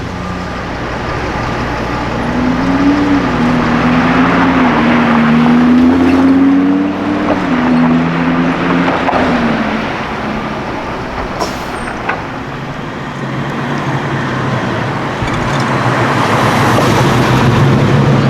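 Car engines running in street traffic. One engine's pitch rises and falls unevenly between about two and ten seconds in, and another engine grows louder near the end.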